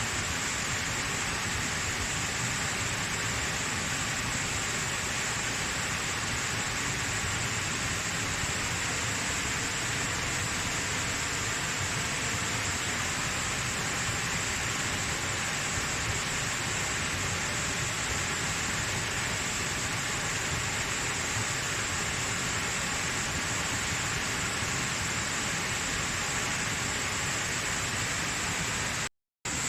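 Waterfall: water pouring and splashing in a steady, even rush. The sound cuts out for a split second near the end.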